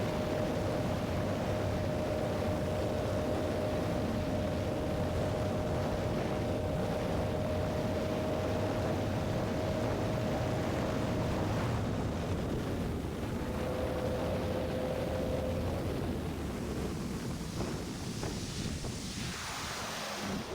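Wind rushing over the microphone with a steady motor whine from an electric trolling motor; the whine stops about halfway through and comes back briefly a little later. Near the end a rushing sound falls in pitch.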